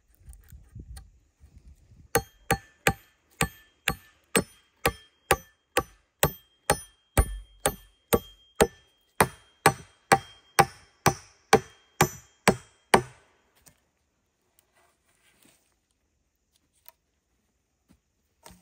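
Axe chopping wood: about two dozen quick, even blows, roughly two a second, each with a short metallic ring. The chopping stops about two-thirds of the way through, leaving only a few faint knocks.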